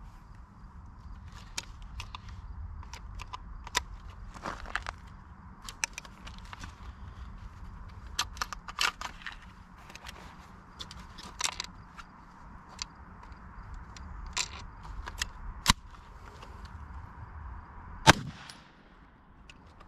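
A single shot from a 9mm pistol firing a hot 124-grain +P+ round at close range into a level IIIA soft ballistic vest, a sharp crack with a low thump near the end. Before it, scattered small clicks and knocks of handling.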